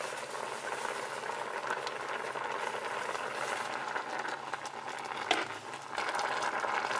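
Pot of perilla-seed sujebi soup boiling hard on the stove, a steady bubbling, with one short click a little past five seconds in.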